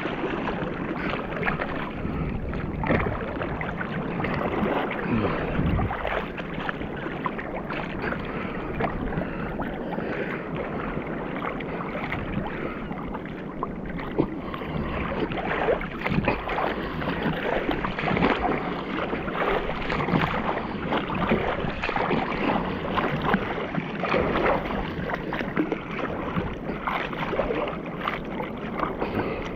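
Sea water sloshing and splashing against a camera held at the surface, a steady run of small splashes and gurgles as swells lift it.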